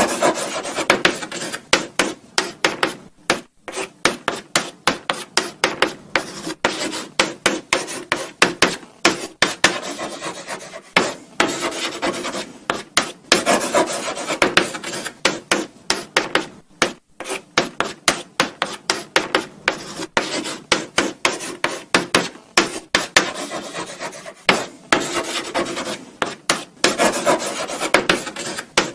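Chalk writing on a blackboard: quick, short scratching strokes one after another, several a second, with brief pauses between words.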